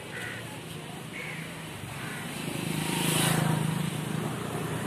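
A motor vehicle passing by, its engine sound swelling to a peak about three seconds in and then fading.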